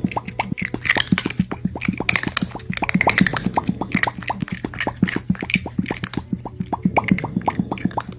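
Rapid string of cartoon mouth-pop sound effects, the Pop Cat meme 'pop', several a second without a break, as the cats eat.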